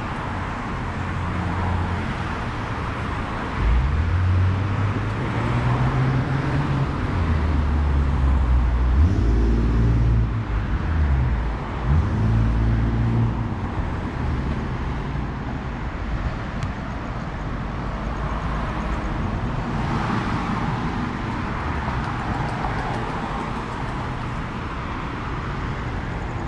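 City street traffic: cars and trucks driving past. A vehicle engine is loudest in the first half, with its pitch shifting up and down, over a steady hum of traffic.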